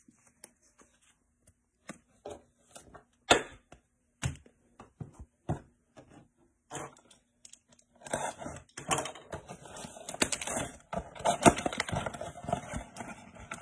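Scattered sharp taps and clicks of cards and a cardboard box being set down on a table, then from about eight seconds in a dense run of crinkling and scraping as a sealed trading-card hobby box is handled and its wrapping and top are torn open.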